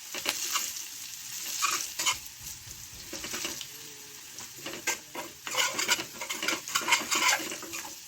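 Chicken and potato curry sizzling in a pan while being stirred, with a utensil scraping and knocking against the pan in irregular strokes.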